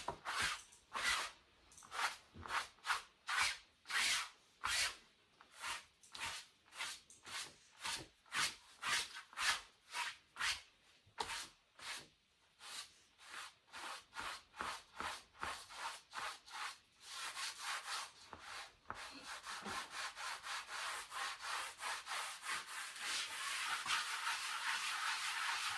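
Cloth rag rubbing and smudging paint on a canvas in separate strokes about two a second. About two-thirds of the way through it turns into quicker, continuous scrubbing.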